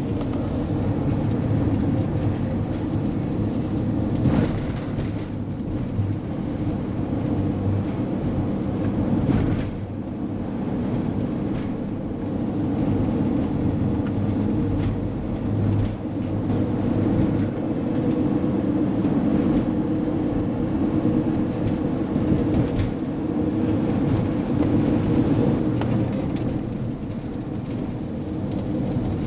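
A 2016 Winnebago View motorhome driving at road speed: steady engine and road noise, with a few brief knocks about four and nine seconds in.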